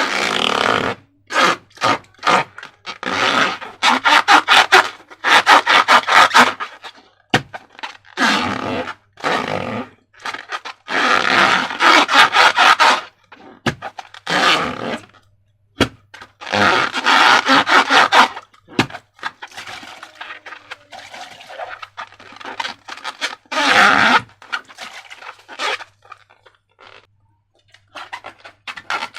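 Slime being squished and worked by hand: sticky, crackling squelches in bursts of a second or two, separated by short pauses.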